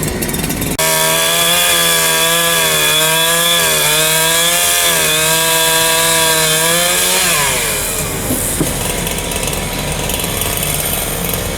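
Chainsaw revving up about a second in and cutting through the top of a 6x6 wooden fence post, its engine note dipping slightly under load. After about seven seconds the engine winds down to idle.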